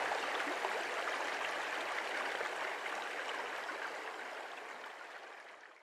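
Shallow, rocky stream running over and around stones: a steady rush and babble of water that fades out toward the end.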